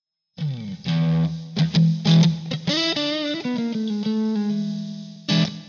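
Short guitar music intro: plucked notes and strummed chords, ending with a final strummed chord that rings out.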